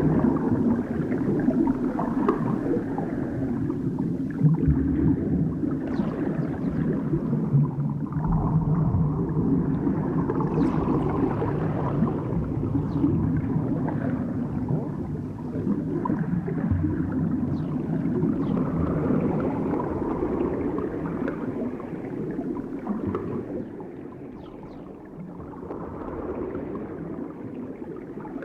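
Underwater movement texture: a dense, muffled churning and gurgling of water heard as if from beneath the surface, with small irregular swirls and faint higher squeaks scattered through it. It eases slightly in the last several seconds.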